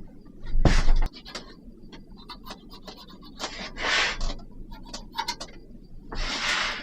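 Wooden bed slats being handled and fitted: three short scrapes of wood on wood, with scattered light knocks and clicks between them.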